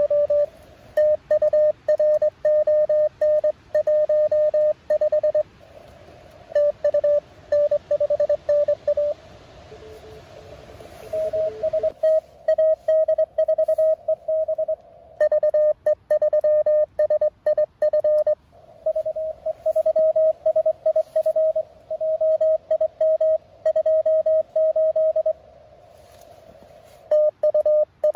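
Morse code from a Mountain Topper MTR-4B QRP transceiver during a contest exchange: a steady-pitched tone keyed in quick dots and dashes, with pauses of receiver hiss between transmissions. About ten seconds in, a second, fainter and lower-pitched station is heard briefly.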